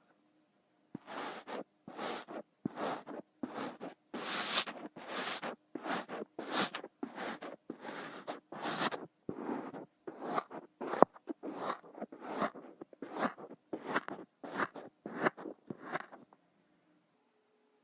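Kinetic sand crunching and scraping in a steady run of short strokes, about two a second, stopping shortly before the end.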